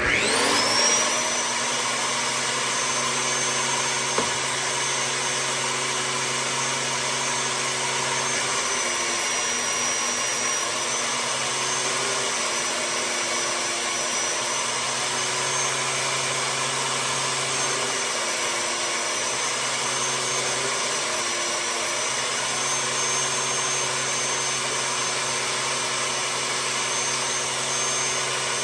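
Handheld belt sander, turned upside down, starts up and runs with a steady motor whine. Its pitch sags several times in the middle stretch as small wood pieces are pressed against the belt and sanded.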